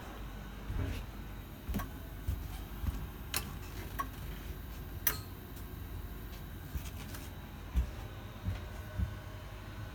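Steady low hum of a locomotive cab's equipment, with scattered sharp clicks of cab push-buttons and switches being pressed, about seven in all, the sharpest about five seconds in.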